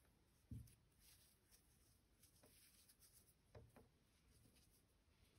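Near silence, with two faint, brief soft sounds of hands handling yarn fringe while tying it into a square knot, about half a second in and again past the middle.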